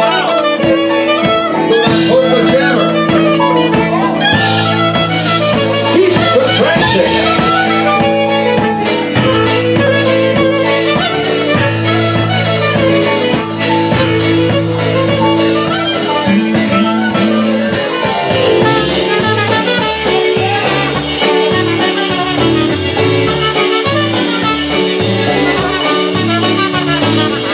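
Live band playing an upbeat tune, with trumpet and clarinet over accordion, electric bass and drum kit. The bass line settles into a steady stepping pattern about eighteen seconds in.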